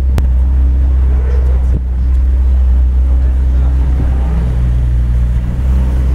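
Porsche 918 Spyder's 4.6-litre V8 idling steadily as the car creeps forward at low speed, its pitch shifting slightly about four seconds in. A sharp click sounds just after the start.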